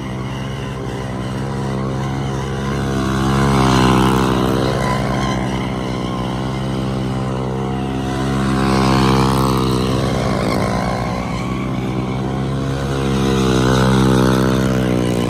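Several mini bikes' small single-cylinder engines running as the bikes circle close by. The engine note stays steady and swells louder about every five seconds as the bikes pass.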